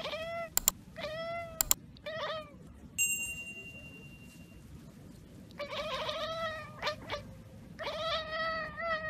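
Domestic cat chattering at prey it sees through a window but cannot reach, in about five bursts of rapid chirping calls. Two sharp mouse-click sound effects come in the first two seconds, and a bell ding about three seconds in.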